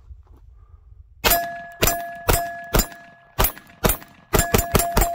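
Unsuppressed Glock 43X MOS 9mm pistol firing Magtech 115-grain FMJ rounds: about ten loud shots, roughly two a second, with the last four coming faster. A steady ringing tone hangs between the shots.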